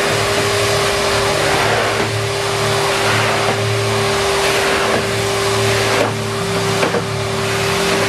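Numatic Henry Wash vacuum cleaner running steadily, its motor giving a constant whine, while its floor tool is worked over a wet concrete floor. The sound dips briefly about six seconds in, and a couple of light knocks follow.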